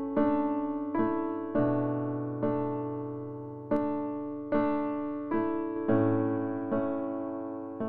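Background music: soft keyboard chords, a new one struck about once a second and each fading before the next.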